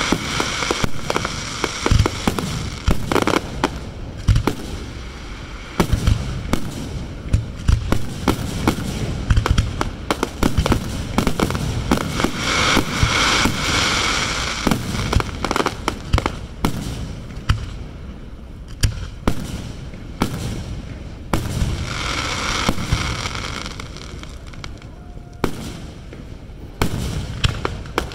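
Aerial fireworks going off one after another: a steady run of bangs from bursting shells, with crackling between them.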